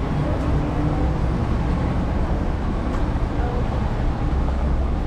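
Street traffic: a steady low rumble of vehicles on the road.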